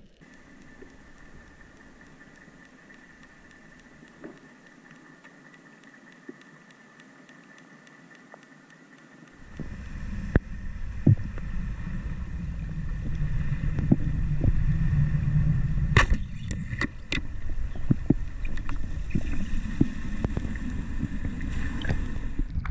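Underwater recording of a freediver spearfishing: faint hiss at first, then from about nine seconds in the rumbling wash of water as he moves, with sharp clicks and snaps. The loudest is a crack a little past two-thirds in, the speargun firing its shaft.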